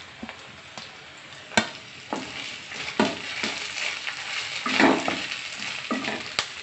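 Chopped onions, green beans and green chilli frying in oil in a metal kadhai with a steady sizzle. A wooden spatula stirs the vegetables, knocking and scraping against the pan: one sharp knock about a second and a half in, then a scrape every half second to a second, the longest and loudest near the five-second mark.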